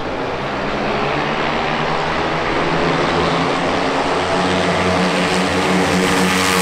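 Two minibikes' small engines running at high revs as they race down the street toward the listener, a steady buzzing drone that grows louder as they come closer.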